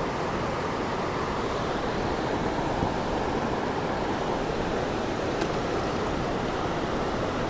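Steady rushing of fast creek water running over rocks below a waterfall.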